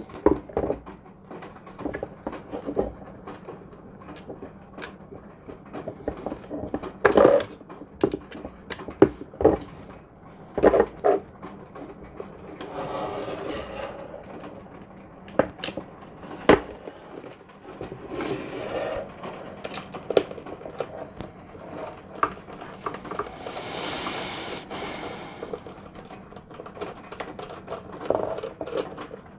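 Scattered clicks and knocks of a screwdriver and small screws being worked into the plastic housing of a DJI Phantom 3 Standard remote controller, with a few brief scraping noises in between.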